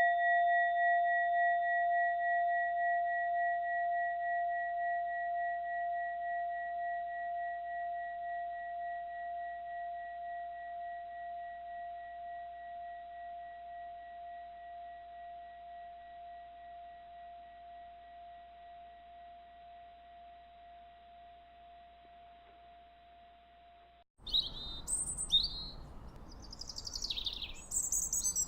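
A mindfulness bell rings out from a single stroke, its tone wavering in slow, even beats as it fades away over about twenty seconds. Near the end it cuts off suddenly and birds start chirping and singing.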